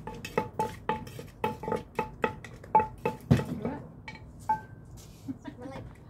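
Wooden pestle pounding in a clay mortar for papaya salad: sharp knocks about four a second, each with a short ringing tone. The pounding stops about three and a half seconds in, and a few lighter, scattered knocks follow.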